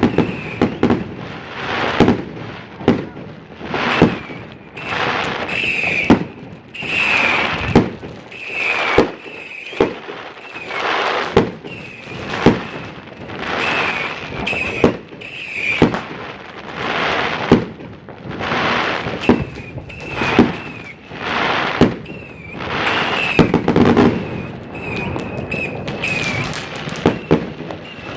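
New Year's Eve fireworks: a dense, continuous run of rocket and firecracker bangs with crackling bursts about every second, and repeated short high whistles.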